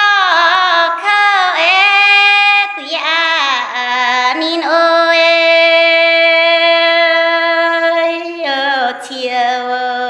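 A woman singing a Red Dao folk song alone, without accompaniment, with wavering ornaments on the notes. She holds one long, steady note in the middle and breaks briefly for breath a few times.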